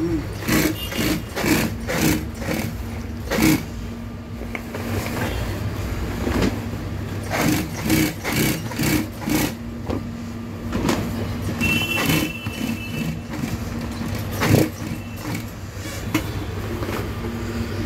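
Industrial long-arm sewing machine running, its motor humming steadily as it stitches heavy waterproof canvas. Irregular rustles and knocks come from the stiff fabric being pulled and handled through the machine.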